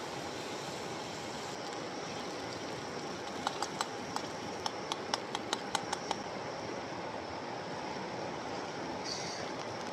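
Steady rush of a mountain stream, with a quick run of about ten sharp clicks around the middle.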